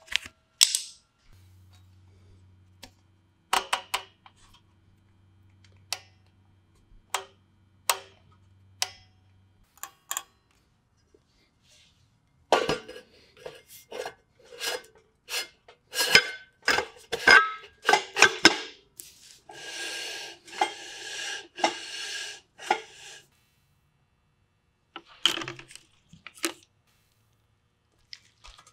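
Rear drum brake parts clicking and clinking as the spring and adjuster hardware is fitted and a brake drum is handled over the shoes. There is a dense run of metal-on-metal clanks about halfway through, followed by a few seconds of continuous rough noise.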